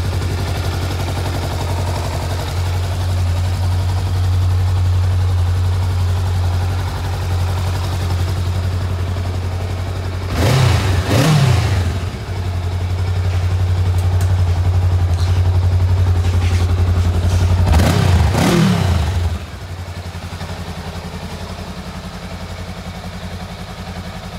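Honda CMX500 Rebel's 500cc parallel-twin engine idling steadily. The throttle is blipped twice, about ten and eighteen seconds in, each time in a quick double rev that rises and falls back to idle. The engine is quieter for the last few seconds.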